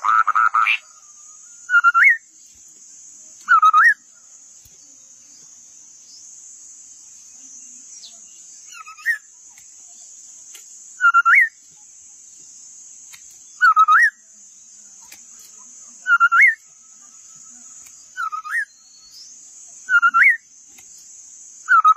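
Scimitar babbler calling: short, clear whistled notes that dip and then sweep upward, repeated about every two seconds, with a few fainter notes between them. The first note, right at the start, is the loudest.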